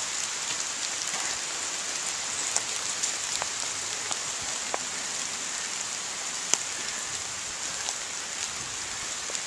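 Steady rain falling, an even hiss with scattered light ticks of drops and one sharper click about six and a half seconds in.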